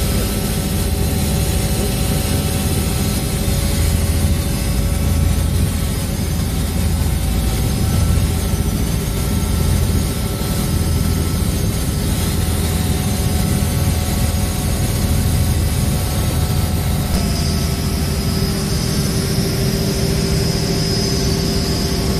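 Helicopter cabin noise in flight: the steady drone of the engine and rotor, with a higher whine that comes up more strongly about three-quarters of the way through.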